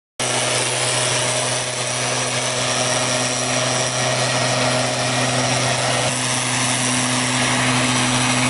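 A STIHL backpack mist blower's two-stroke engine running steadily, with the rush of its air blast, as it sprays disinfectant. It cuts in abruptly just after the start.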